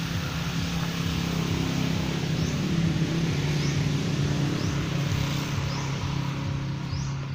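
Motor vehicle engine on the nearby road, a steady hum that grows louder towards the middle and eases off near the end, as traffic passing by. Faint short high chirps repeat about once a second over it.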